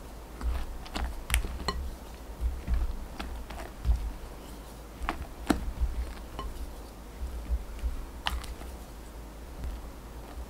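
A silicone spatula folding thick cake batter in a glass mixing bowl: soft scraping with irregular light clicks and knocks against the glass.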